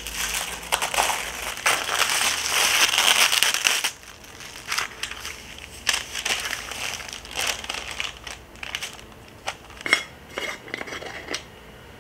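Baking paper crinkling and rustling as it is handled around a white enamel tray: dense crinkling for about four seconds, then scattered crackles and a few light taps.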